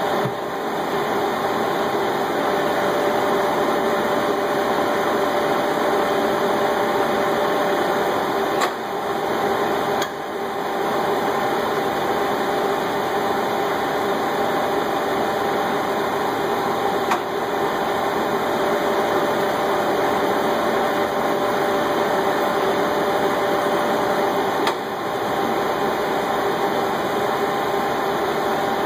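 Metal-turning lathe running steadily, its motor and gearing whirring with a steady hum, while a steel bar spins between centres. There are a few brief ticks.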